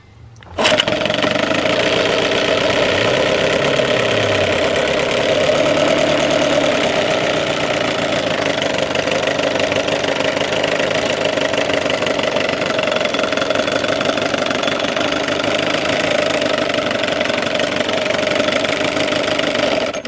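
Evinrude 6 HP two-stroke outboard motor running steadily in a test tank, coming in abruptly about half a second in. It runs evenly now that its carburetor's low-speed circuit has been cleaned and a new welch plug fitted, the cure for its hard starting and poor idle.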